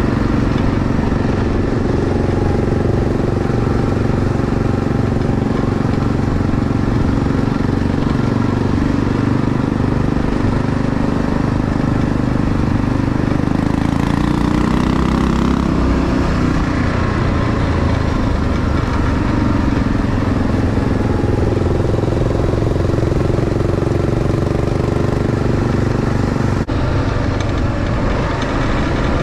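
Kawasaki KLR 650's single-cylinder four-stroke engine running under way on a gravel road, heard from on the bike. Its note rises and falls about halfway through.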